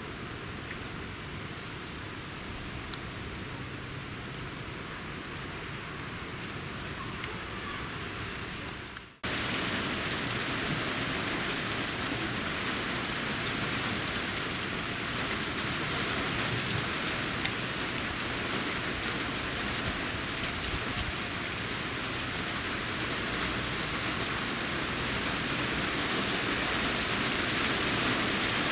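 Rain falling in a moderate downpour, an even hiss, with insects chirring in a steady high note over it for the first third. After a sudden cut about nine seconds in, the rain is louder and denser and swells a little toward the end, with one sharp click midway.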